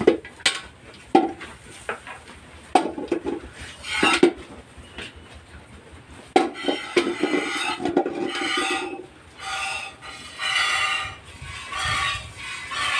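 An aluminium milk pail is knocked and clanked as it is set under the cow. Then, from about six seconds in, jets of milk from hand-milking squirt into the metal pail in quick repeated strokes.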